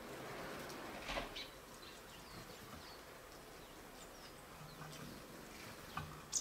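Small wild birds giving scattered short, high chirps, with a few sharp taps, the loudest right at the end.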